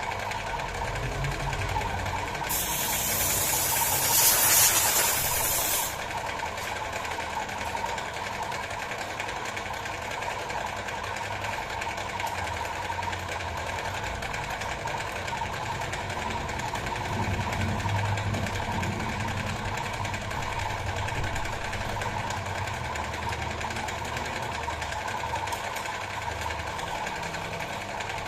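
Metalworking lathe running steadily with a mechanical hum. A loud hiss starts about two and a half seconds in and lasts a few seconds.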